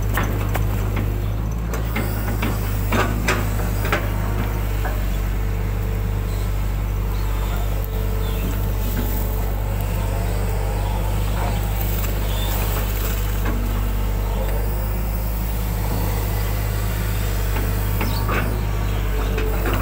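Hydraulic excavator's diesel engine running steadily, heard from the cab, as the bucket digs mud from a ditch, with a few short knocks now and then.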